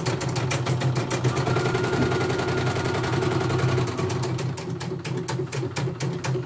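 CNY portable embroidery machine stitching: a rapid, even run of needle clicks over the steady hum of its motor.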